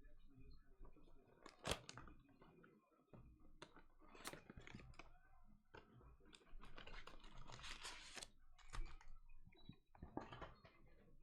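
Faint handling of trading-card packaging: scattered clicks and taps, then a denser stretch of plastic crinkling about seven to eight seconds in, as a card box and its foil packs are opened.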